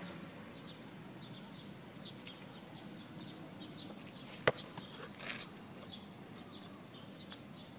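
A small songbird calling, repeating short high arching chirps about two or three times a second. A single sharp knock sounds about four and a half seconds in.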